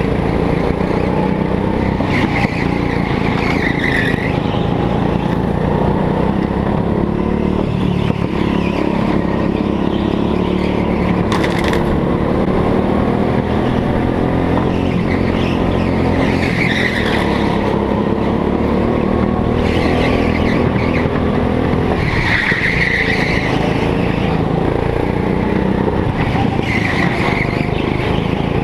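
Go-kart engine running hard under the onboard camera, its note rising and falling through the corners. The tyres squeal on the smooth indoor track several times as the kart slides through bends.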